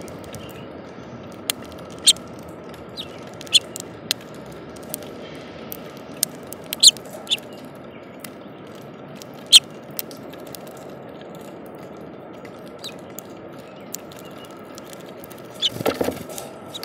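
Steady rain on a plastic window bird feeder, with sharp ticks scattered through. Near the end a brief flurry of wingbeats as house finches flutter onto the feeder perch.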